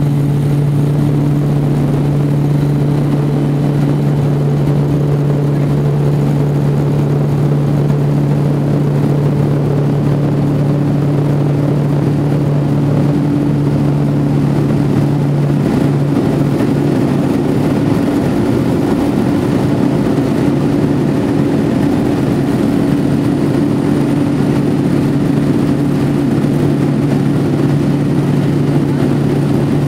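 Quest Kodiak's single turboprop engine and propeller running at takeoff power, a loud steady propeller hum over rushing air, heard from inside the cabin as the plane rolls and lifts off. The hum wavers for a few seconds past the middle, then settles again.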